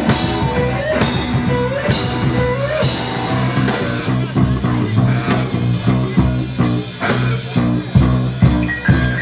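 Live rock band playing electric guitar, bass guitar and drum kit. A short rising slide repeats about once a second in the first few seconds over a steady beat.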